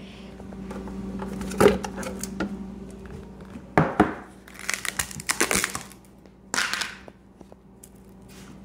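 A plastic food container holding a frozen block of ice is handled. It gives a few separate knocks and short bursts of crackling and crinkling from the plastic and ice, over a steady low hum.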